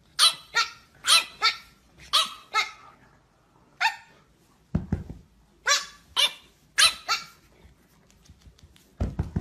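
French bulldog puppy yapping: about eleven short, high-pitched barks, mostly in quick pairs. A dull low thump comes about five seconds in.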